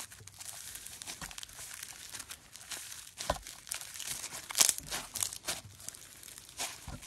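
Foam slime being worked, giving a run of irregular crunchy crackles and pops, the loudest about four and a half seconds in.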